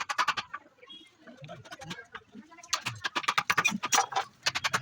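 Quick runs of sharp taps or clicks, with a sparser stretch in the middle.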